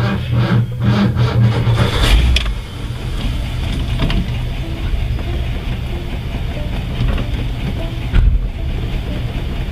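Steady running sound of a 1955 Ford station wagon with its 292 Y-block V8, a continuous low hum, with two low thumps about two seconds and eight seconds in.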